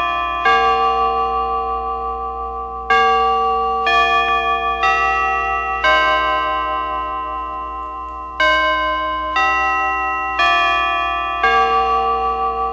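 Chime bells striking a slow tune, about one note a second in phrases of four with a pause between phrases, each note ringing on and overlapping the next.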